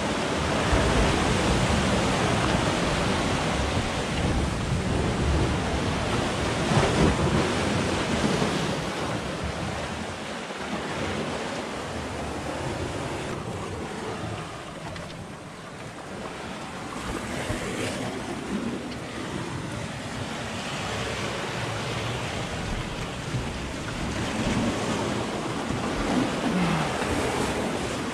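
Sea surf washing and breaking against rocks, a steady rushing that swells and eases, with wind blowing on the microphone.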